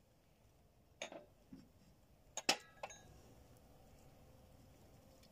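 Ladle clinking against a metal cooking pot as thick stew is served into a bowl: a few short knocks, the loudest with a brief ring about two and a half seconds in.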